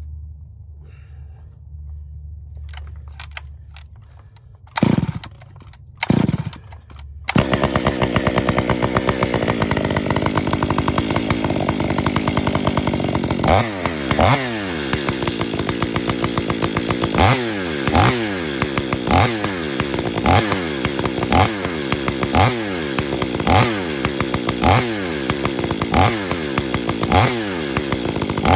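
Stihl MS 500i chainsaw cold-started by pull cord: two loud pulls about a second and a half apart, and the engine catches on the second pull and runs. From about halfway through, the engine note dips and rises in a steady cycle about once a second.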